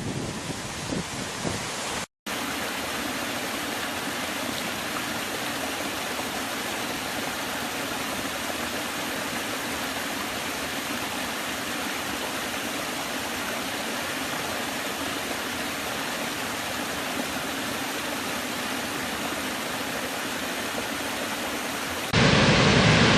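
Waterfall: a steady, even rush of falling water. There is a brief cut to silence about two seconds in, and the rush jumps louder near the end.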